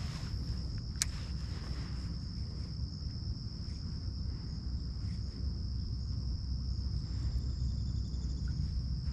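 Insects droning steadily at one high pitch over a constant low wind rumble on the microphone, with a single sharp click about a second in.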